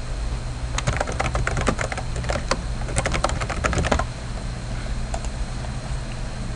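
Typing on a computer keyboard: a quick run of keystrokes starting about a second in and stopping about four seconds in. A low steady hum underneath.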